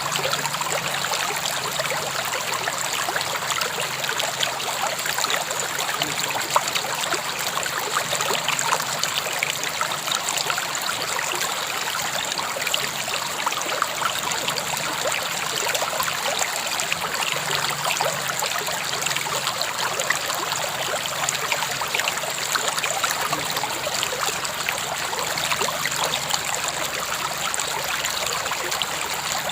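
River water flowing steadily, a continuous rush with fine splashing and trickling.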